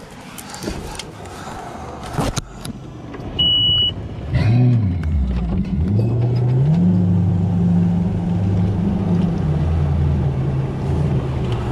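Boat outboard motor starting about four seconds in, just after a short electronic beep, then running at idle with a steady low hum whose pitch steps up once a couple of seconds later. A few knocks come earlier.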